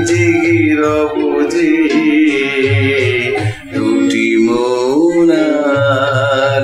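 A man singing a slow Bengali song over instrumental backing, with a short break between sung phrases about halfway through.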